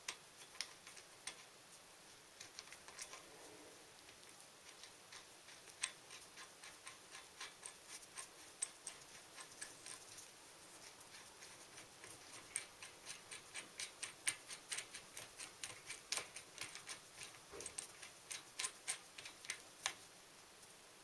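Light, irregular metallic clicks and ticks from bicycle crank and bottom-bracket parts being handled and turned, sparse at first and coming thicker, several a second, in the second half.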